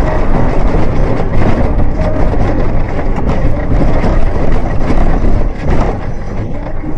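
Loud rumble and rattle of a car driving over a broken, potholed asphalt road, picked up by a dash camera's microphone, with many small knocks from the bumps.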